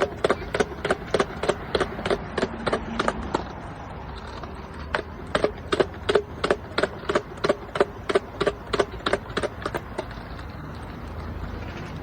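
A skateboard knocking down a flight of stairs, one sharp clack per step at about four a second, in two runs with a pause of about a second and a half between them.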